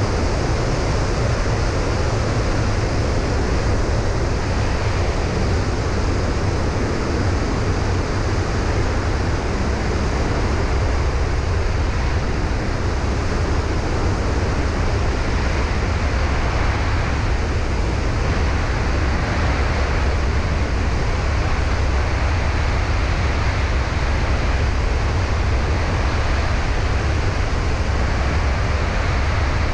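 Steady rush of airflow over a camera mounted outside a single-engine light plane in flight, with the drone of its engine and propeller underneath.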